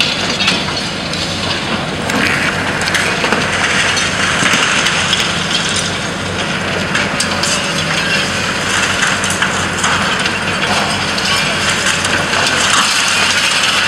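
Long-reach demolition excavator's jaws crushing the concrete of a multi-storey building, a dense crackling and crumbling with rubble pattering down, over the steady running of the machine's engine. The crunching grows louder about two seconds in.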